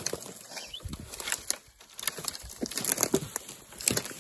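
Rubber boots crunching and rustling through dry grass and brittle twigs: irregular crackles and soft thuds, louder near the end.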